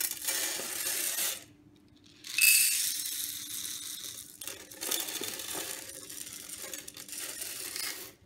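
Dry white popcorn kernels poured from a scoop into the oiled pan of a West Bend Stir Crazy popper: a hissing rattle of kernels falling into the pan, a pause of about a second, then a second, longer pour that starts loud and trails off.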